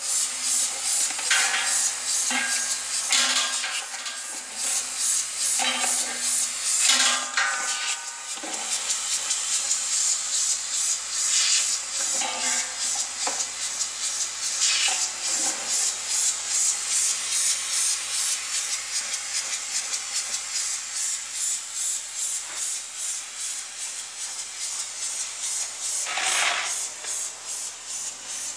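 Green plastic caps rattling and scraping against the stainless steel bowl of a rotary cap feeder as it turns, a steady rasping rattle with a regular pulse and a low steady hum beneath. Several louder clacks of caps come in the first few seconds and one more near the end.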